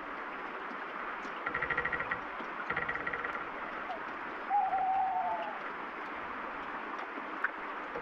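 Steady rain, with two short creaks of tree branches early on and then a single drawn-out owl hoot about halfway through that dips slightly in pitch.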